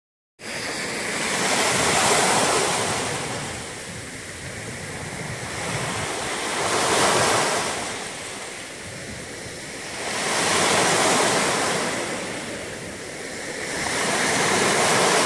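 Small sea waves breaking and washing up a stony shore: a hiss of surf that swells and fades about every four seconds.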